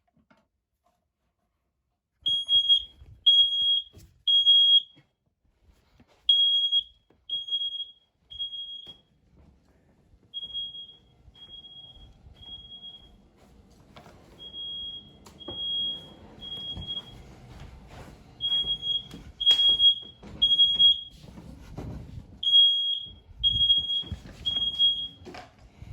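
Smoke alarm sounding in the three-beep temporal evacuation pattern: groups of three high beeps repeat about every four seconds, starting about two seconds in. From about halfway, knocks and rustling sound underneath.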